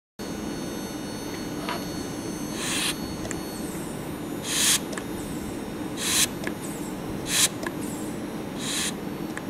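Electric buzzer sounding steadily inside a sealed bell jar as a hand-held syringe vacuum pump draws the air out. Five short hisses, about one every second and a half, each swell and cut off sharply as a pump stroke expels air.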